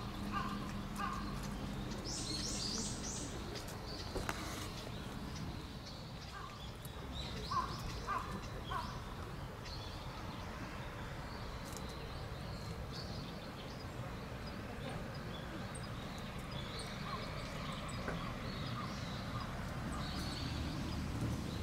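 Birds calling outdoors: short calls in quick groups of two or three, a burst of higher chirps early on, over a steady low background rumble.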